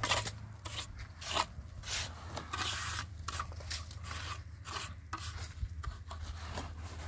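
Metal trowels scraping and spreading wet cement mortar, scooping it from a basin and smoothing it over stones: a run of irregular, short rasping scrapes.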